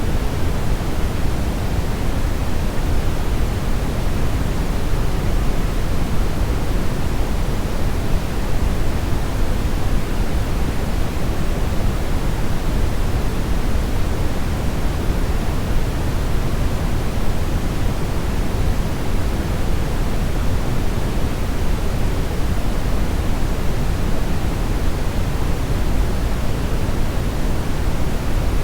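Steady, unchanging brownish (deep, bass-heavy) noise, an even rumbling hiss.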